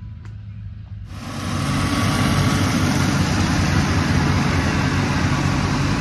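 A low engine hum, then about a second in a sudden loud, steady combine harvester running close by: a dense engine drone with a strong hiss over it.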